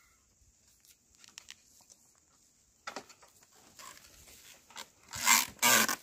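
Rustling and scraping of dry grass and tilled soil as the yoked oxen and wooden plough move past at close range, with faint clicks and two louder rustles near the end.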